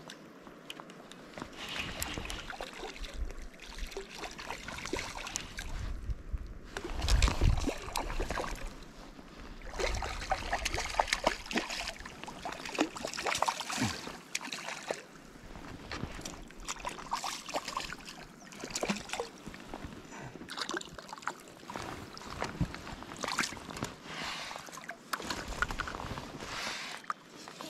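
Irregular sloshing and splashing of river water, in uneven surges, the loudest about seven seconds in.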